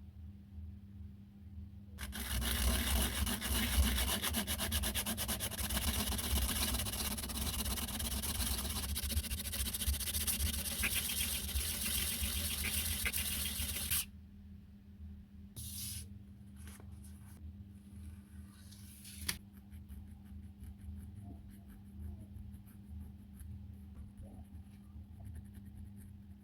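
Metal coin ring being sanded: a dense, rapid scraping that starts about two seconds in and stops abruptly around the middle, followed by quieter handling with a few small clicks.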